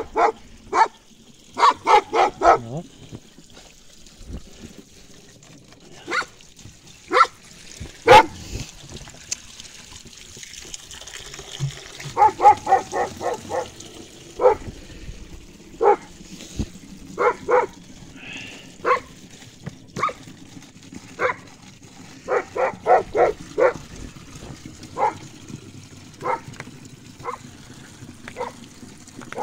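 Dog barking over and over, sometimes single barks and sometimes quick runs of four or five, with water trickling faintly from an outdoor tap.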